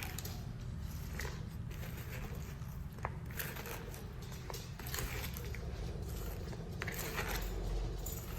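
Irregular crisp crunching and rustling from handling the raw coleslaw vegetables, over a steady low hum.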